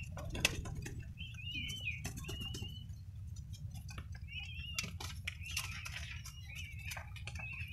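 Young albino ringneck dove (puter) giving wavering high-pitched begging squeals in several short bouts, with wing flaps and sharp rustling clicks as it is held to be hand-fed, over a steady low hum.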